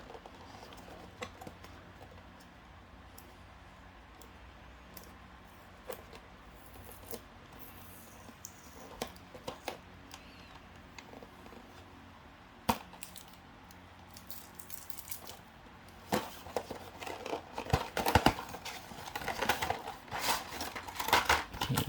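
Cardboard box and plastic packaging being opened and handled by hand: scattered light clicks and rustles, growing busier and louder for the last six seconds.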